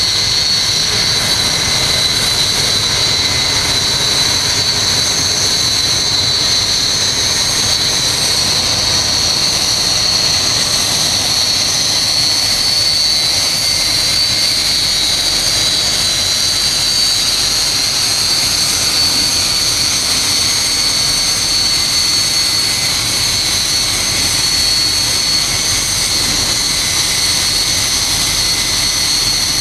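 Several BAE Hawk T1 jets' Rolls-Royce Adour turbofans running steadily at taxi power: a loud rush of jet noise with a constant high-pitched whine on top.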